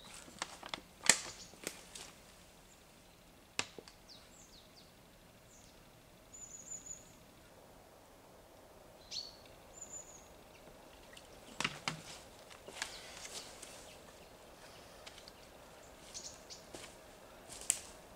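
Scattered rustles, clicks and steps of a person handling gear and moving about on a damp forest floor, the sharpest click about a second in. A few short, high bird chirps come in the middle.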